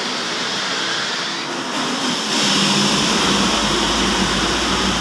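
Mercedes-Benz OH 1526 intercity bus's diesel engine pulling away and driving off. The engine note gets louder about two seconds in and then holds steady and low.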